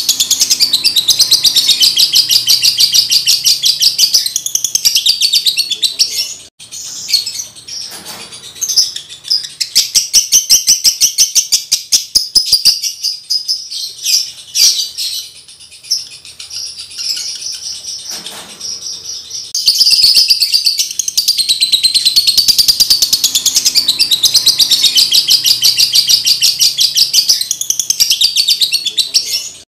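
Male Fischer's lovebird in breeding condition singing a long, rapid chattering warble. The song is loud and unbroken at the start and again from about two-thirds of the way through, and comes in broken, quieter bursts in between.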